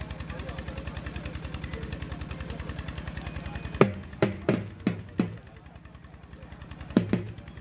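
Five sharp, loud bangs in quick succession about halfway through, and two more close together near the end, over a steady pulsing background noise.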